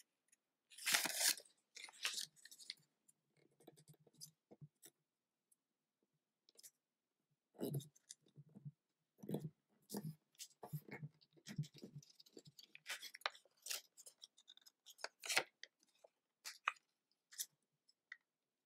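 A sheet of origami paper being folded and creased by hand: faint, scattered rustles and crinkles with quiet gaps between them.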